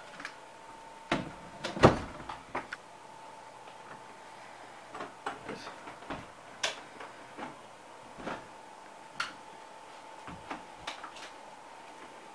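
Scattered short clicks and knocks at irregular intervals, the loudest about two seconds in, over a faint steady tone.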